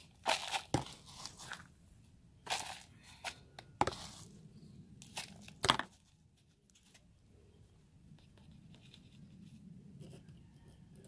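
Plastic hand scoop scraping into potting mix and pouring it into a plastic nursery pot: a series of short scrapes and rustles over the first six seconds, then only faint handling of the soil.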